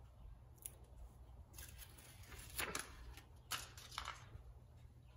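Faint rustling and crinkling of a stick-on motorcycle tank knee pad's adhesive liner being handled and peeled, a few short scrapes with light clicks in between, most of them in the middle seconds.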